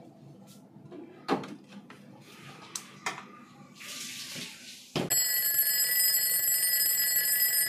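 A few faint clicks and a short hiss, then an alarm-clock bell sound effect cuts in suddenly about five seconds in and rings steadily and loudly.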